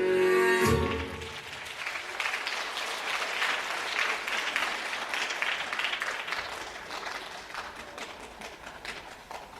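Stage music ends on a final chord under a second in, and audience applause follows, slowly dying away.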